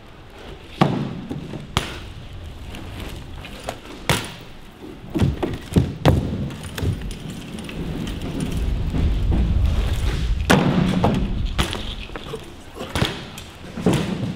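BMX bike on a concrete floor: tyres rolling with a low rumble, and sharp thuds and clanks, about half a dozen, as the wheels drop back to the ground.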